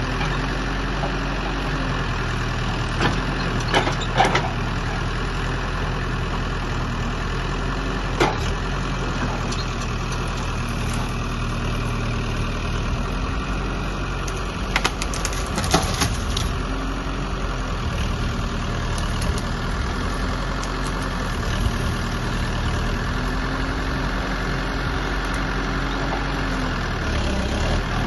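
A heavy machine's engine runs steadily, its pitch dipping slightly now and then, with a few short sharp knocks over it.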